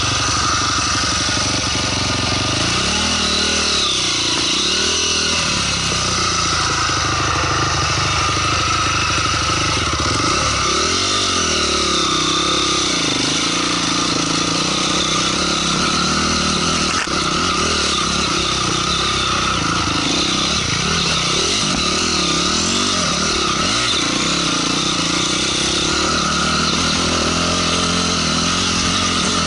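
Honda CRF250R's single-cylinder four-stroke engine running throughout, its revs rising and falling again and again as the throttle is worked. A single sharp click about two-thirds of the way through.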